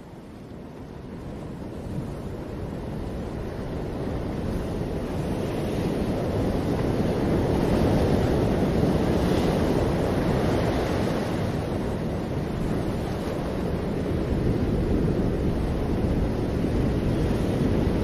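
Ocean surf breaking over rocks and washing up a sandy beach: a steady rushing wash that fades in and swells to its loudest about halfway through.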